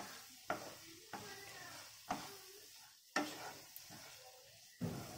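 A spatula stirring and tossing bread pieces through a masala in a nonstick frying pan, scraping and knocking against the pan about five times at uneven intervals, over a faint sizzle.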